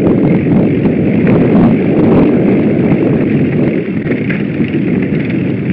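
Mountain bike ride on rough dirt singletrack heard from an on-board camera: loud wind buffeting on the microphone mixed with the rumble and rattle of tyres and bike over the trail.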